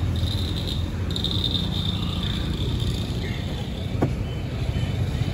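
Steady low rumble of a car idling at the kerb, with a steady high-pitched buzz over it and a brief faint squeak about four seconds in.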